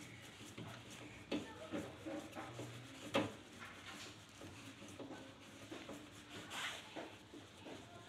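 A few faint clicks and knocks over low background noise, the clearest about a second and a half and three seconds in.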